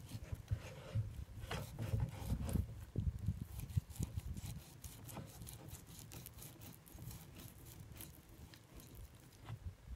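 Filleting knife cutting along a flathead's body on a plastic cutting board: irregular scrapes and small clicks of the blade and board, busier in the first half.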